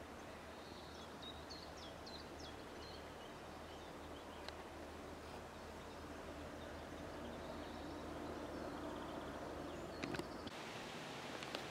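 Countryside ambience: a steady rustling haze, with a bird chirping a few quick high notes in the first few seconds. A single click around the middle and a few clicks near the end.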